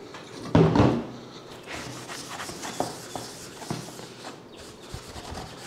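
Cloth wiping and rubbing across a polypropylene bumper cover, with light knocks and clicks as the plastic shifts on the table, and one louder bump about half a second in.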